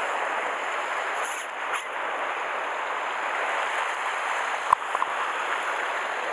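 Sea surf washing over a rocky shore, a steady hiss of breaking water, with one sharp click about three-quarters of the way through.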